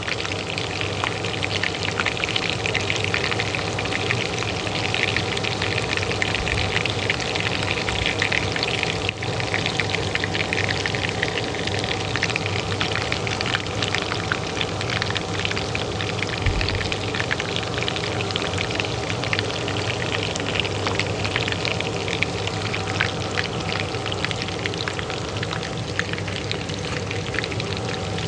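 Hot oil frying with a dense, steady crackle and sizzle, over the constant hum of a kitchen range hood fan.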